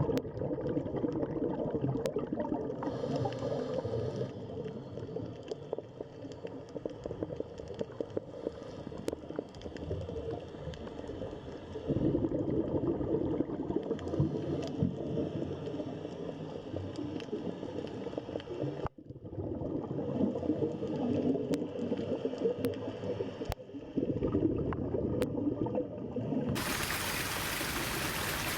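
Running water gurgling and burbling, uneven and crackly, with a couple of abrupt breaks. Near the end it gives way to the even hiss of a rushing stream.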